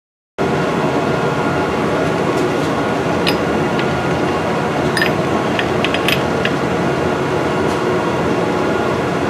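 Steady mechanical hum of a running machine in a metal workshop. A few light metallic clicks and taps come midway, as a turned-down bolt is handled and taken out of a lathe chuck.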